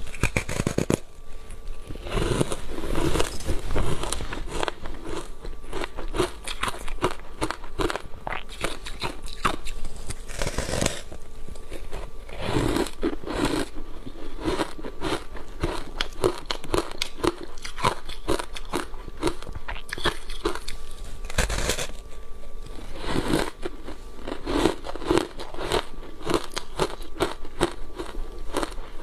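Crunchy foam block ice, thickly coated in matcha powder, being bitten and chewed: a dense run of sharp crackling crunches as the ice breaks between the teeth, with heavier bursts at each new big bite every several seconds.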